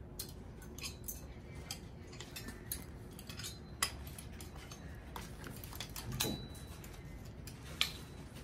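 Clothes hangers being handled on a metal clothing rail: metal hooks clicking and scraping along the bar and wooden hangers knocking together as garments are taken down, in quiet scattered clicks and clinks with a few sharper ones.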